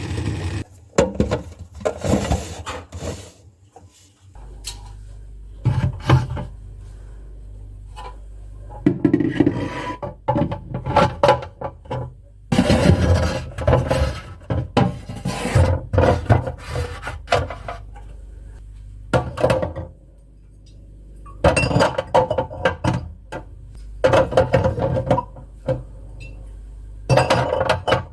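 Dishes, glass jars and food containers being handled and set down, with repeated clinks and knocks, as a refrigerator is organized. A low steady hum comes in about four seconds in.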